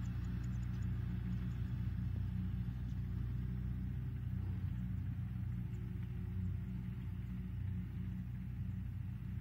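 Farm tractor's diesel engine running steadily at a low hum as it pulls a loaded trailer across the field.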